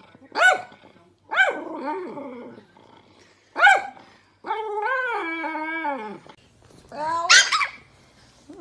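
Small Chihuahua-type dog barking and yapping protectively at a man leaning close to it, in several short barks with one longer drawn-out cry in the middle that falls in pitch at its end.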